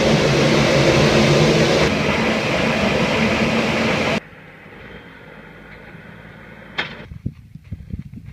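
Farm harvest machinery engine running steadily with a low hum, cutting off abruptly about four seconds in; then a quieter stretch with one sharp click and a few knocks near the end.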